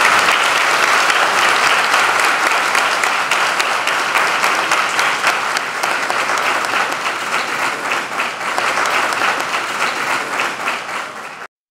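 A large audience applauding, many hands clapping together, the applause slowly thinning out and then cutting off abruptly near the end.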